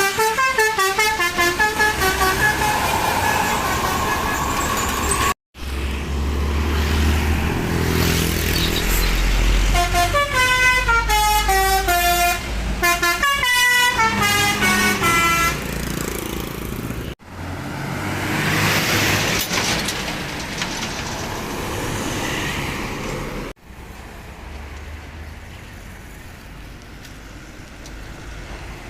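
Indonesian tour-bus 'telolet' Basuri multi-tone air horns playing quick stepped melodies, including a fast descending run of notes, over a bus engine's low rumble. The sound cuts abruptly three times between separate clips, and the last part is quieter road and traffic noise.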